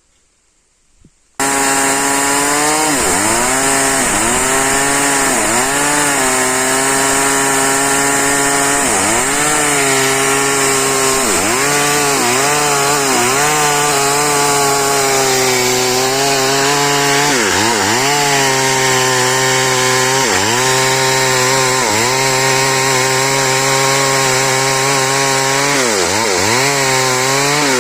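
Chainsaw running at high speed, coming in abruptly about a second and a half in. Its pitch sags and recovers again and again, as it does when cutting wood.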